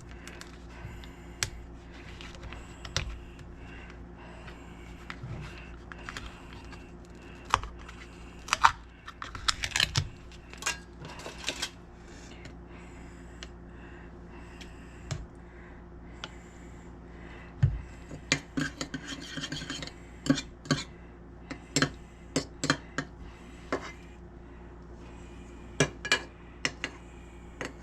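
A spoon clinking and scraping against a jar and bowl while minced garlic is spooned into melted butter: irregular light clicks and knocks, with short scraping stretches, over a faint steady hum.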